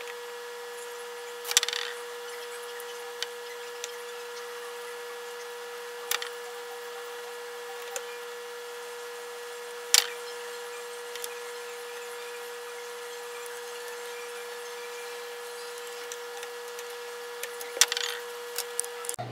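A steady high electrical whine with a few sharp clicks and rubbing knocks from small hardware being handled.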